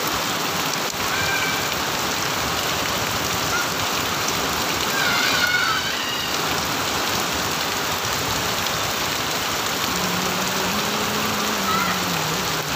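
Heavy rain pouring down on open muddy ground, a steady dense hiss. A brief high-pitched shout cuts through about five seconds in.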